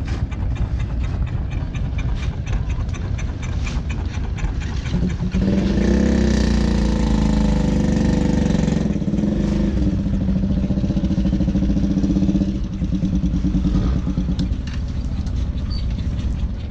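A motor engine running steadily. It swells into a loud, even hum about five seconds in and fades away after about fourteen seconds.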